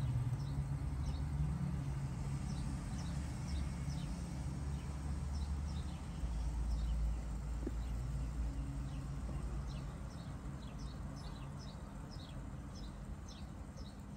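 A low rumble with birds chirping over it: quick runs of short, high, falling notes, coming thicker in the second half.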